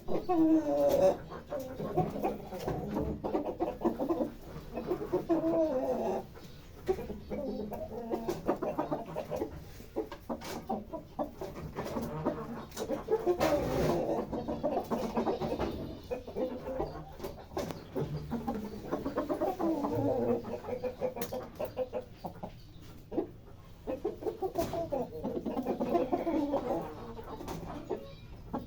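Chickens clucking, short pitched calls overlapping in busy runs with brief lulls.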